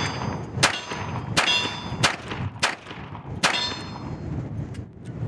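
Colt Detective Special snub-nose revolver fired five times in quick succession, roughly one shot every 0.7 seconds. Each sharp report is followed by a ringing metallic tail.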